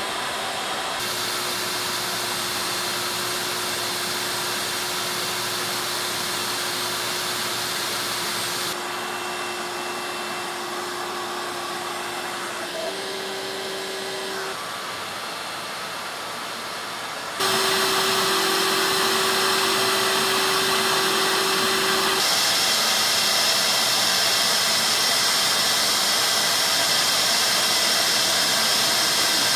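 Steady whoosh of the vacuum drawing air through a CNC vacuum table to hold the shirt down, with a steady low hum from the CNC router's motors as it drives a fabric marker at a slow feed. The sound changes abruptly three times.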